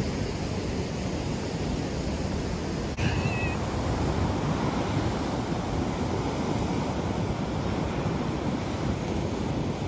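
Ocean surf breaking and washing ashore in a steady rush. About three seconds in there is a brief, high, wavering cry.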